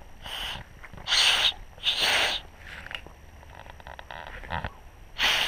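Acorn-cap whistle being blown between the thumbs, about four short breathy blows, three in the first two and a half seconds and one near the end. Only rushing air is heard, with no clear whistle tone: the blows are failing to make the cap whistle.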